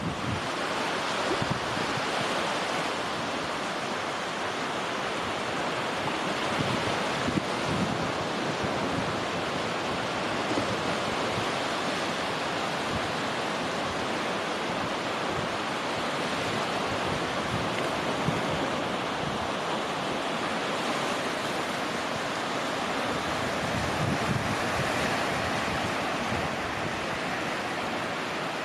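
Steady wash of small sea waves breaking on a sandy beach, with wind gusting on the microphone in low rumbles.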